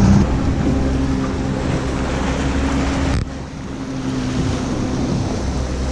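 Honda outboard motor running steadily under way, with the rush of the wake and water and wind buffeting the microphone. The level drops suddenly a little over three seconds in, and the engine carries on underneath.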